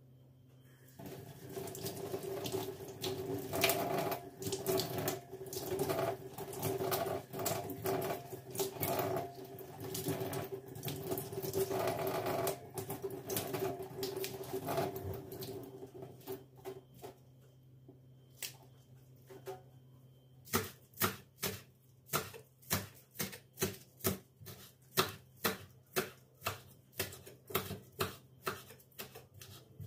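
Kitchen work sounds: a steady hum with clinks and clatter for about the first half, then a regular run of sharp knocks, about three every two seconds.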